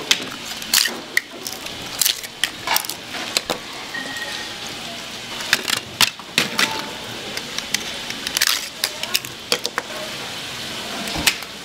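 Kitchen clatter: irregular clinks and knocks of dishes and metal utensils.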